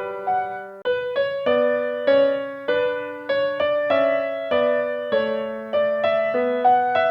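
Background music: a gentle piano or electric piano melody, notes struck about twice a second, each fading before the next.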